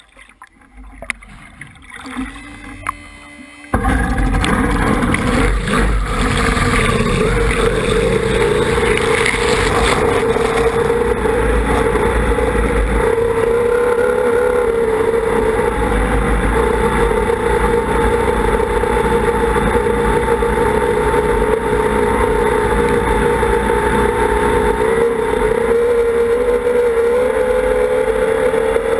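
Water lapping with a few small knocks against a tunnel raceboat's hull. About four seconds in, the sound jumps suddenly to the boat's racing outboard engine running at speed, a loud steady drone whose pitch wavers slightly, mixed with the rush of spray past the hull.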